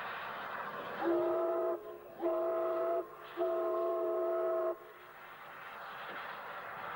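Steam locomotive whistle sounding three blasts, two short ones and then a longer third. Behind them runs the steady rushing noise of the locomotive passing.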